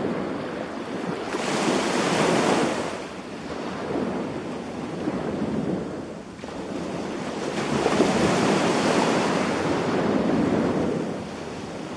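Sea waves breaking and washing up a beach, with two surges of surf, the first about a second and a half in and the second a longer one from about seven and a half seconds in, easing back between them.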